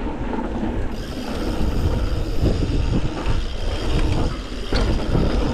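A mountain bike being ridden along a dirt and rock trail: wind buffeting the microphone over the rumble and rattle of the bike on rough ground, loud and unsteady throughout.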